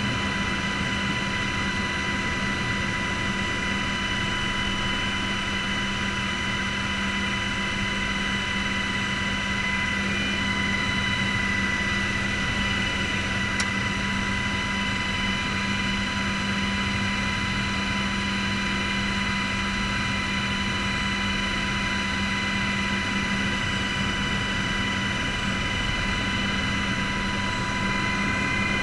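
Helicopter running steadily while taxiing, heard from inside the cockpit: a constant whine of several high steady tones over a low drone. There is one short click about halfway through.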